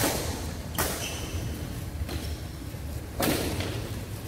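Badminton rackets striking a shuttlecock in a doubles rally. It opens with a hard jump smash, and sharp hits come about a second in and again about three seconds in, each echoing in the hall.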